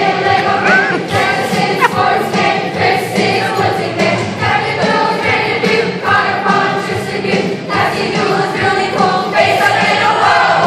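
A children's choir of sixth graders singing a song together.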